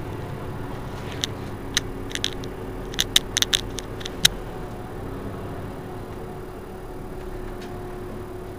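Mercedes-Benz Citaro C2 Euro 6 city bus idling at a standstill, a steady engine hum. About ten sharp, irregular clicks come between one and four and a half seconds in.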